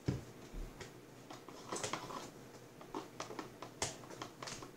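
A low thump, then a run of irregular small clicks and taps from objects being handled on a table.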